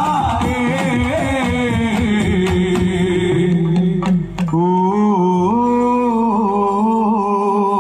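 Live Malayalam folk song (nadanpattu): a male lead singer sings over stick-beaten barrel drums. A little past four seconds in the drumming drops away and the voice settles into long held notes.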